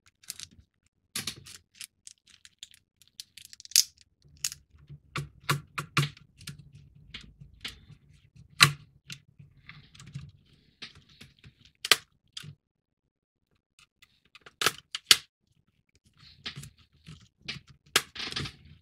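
Scattered sharp clicks and taps of small screws and plastic model parts being handled as a circuit board is screwed into a plastic hull. A low hum runs under the clicks from about four seconds in to about twelve.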